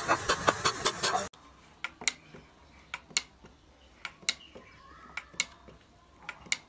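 Rapid sharp tapping of a hand tool on a granite slab, which stops abruptly about a second in. Then a wooden ramp-walker toy steps down a sloping wooden plank, its legs clacking on the board in pairs of sharp clicks about once a second.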